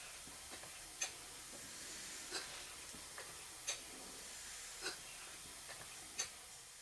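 Stuart Twin Victoria model twin-cylinder horizontal engine running slowly: a steady hiss with a light click repeating about every second and a quarter.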